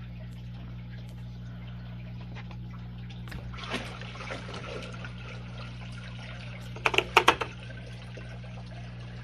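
Water and fish being poured from a plastic bucket into an aquarium, splashing and trickling into the tank. Near the end comes a quick run of four or five sharp knocks, the loudest sounds.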